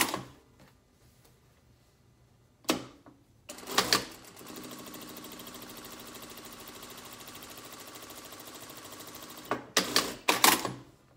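Brother sewing machine stitching a seam at a steady, even speed for about five seconds, with sharp clicks and knocks just before it starts and again right after it stops.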